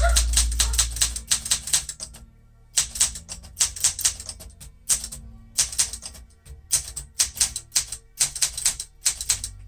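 Olympia SM9 manual typewriter being typed on: quick runs of sharp keystroke and typebar clacks, broken by short pauses between words.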